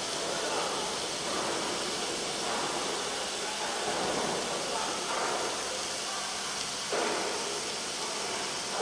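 Steady hiss of quench water spraying onto a large steel gear tooth as it is induction-hardened, with a sudden rise in level about seven seconds in.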